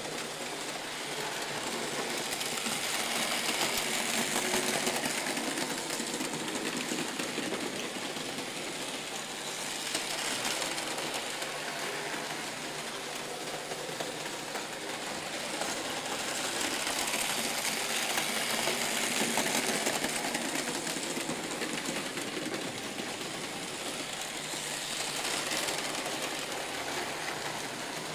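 Märklin model trains running on metal track: a steady whirring rumble of small motors and wheels that swells and fades several times as the trains pass nearer and farther away.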